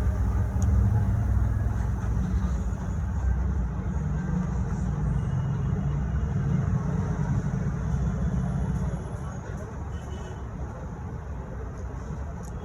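A low, steady rumble that eases off about nine seconds in.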